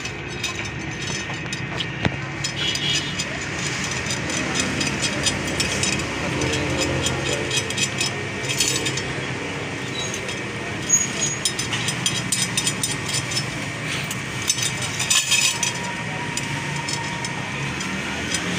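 Steel spokes and spoke nipples clinking and tapping against a chrome Honda CD 70 motorcycle rim and hub as the wheel is laced by hand: light metallic clicks, coming in several denser clusters, over steady background noise.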